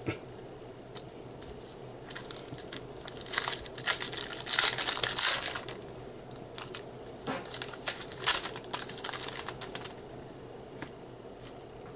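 Crinkling and tearing of a 2013 Bowman baseball card pack's foil wrapper as it is torn open, in a run of irregular rustles from about two seconds in until near the end, loudest around the middle.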